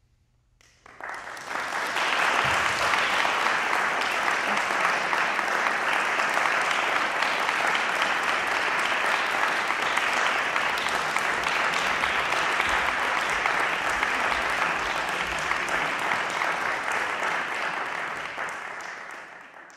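Audience applauding, starting about a second in, building quickly to a steady level, and dying away near the end.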